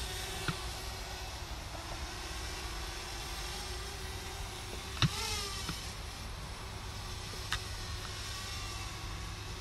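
Quadcopter drone's electric motors and propellers running, a steady buzz that wavers slightly in pitch over a low background rumble. A sharp click comes about five seconds in, followed by a brief sweeping squeak.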